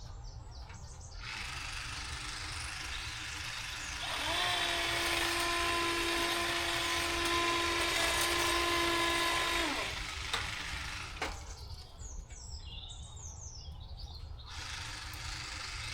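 A power hedge trimmer's motor spins up about four seconds in, runs at a steady high pitch for about five and a half seconds, then cuts off, over a steady background hiss. Birds chirp near the end.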